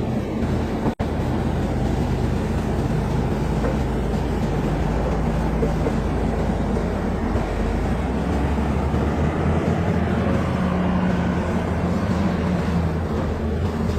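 Caterpillar bulldozer's diesel engine running steadily, with a momentary dropout about a second in.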